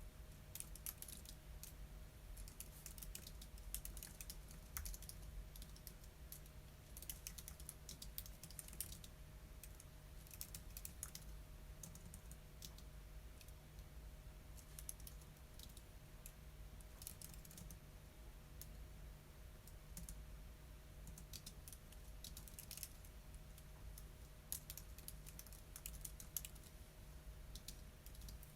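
Typing on a computer keyboard: quick runs of light keystrokes broken by short pauses. A faint steady hum lies underneath.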